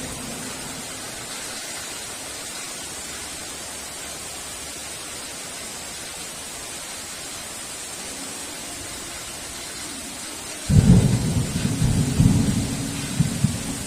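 Heavy rain falling steadily, then a clap of thunder breaks in suddenly near the end, a loud low rumble that surges and rolls on for the last few seconds.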